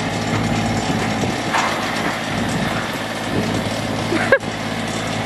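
Tractor engine running steadily, with one brief click about four seconds in.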